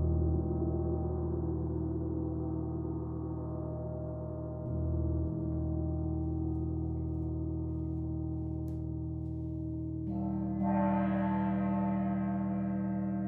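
Gong ringing in long, overlapping low tones. It swells with a soft new stroke right at the start and another about four and a half seconds in, then a brighter, stronger swell about ten seconds in.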